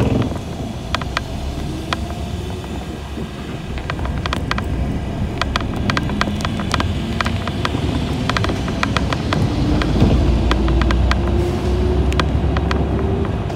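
City bus in motion, heard from on board: a steady low rumble of engine and road with irregular rattling clicks, and a faint whine that slowly rises in pitch in the second half.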